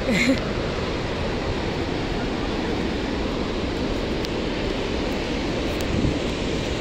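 Steady, loud rushing of wind buffeting the microphone in an open gorge.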